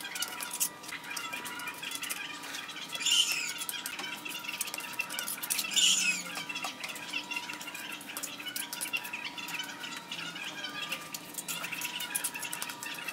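Steel trowel scraping and smoothing wet cement mortar on a brick stovetop: a run of small scrapes and clicks, with two louder, short high-pitched scrapes about three and six seconds in. A thin steady tone runs underneath.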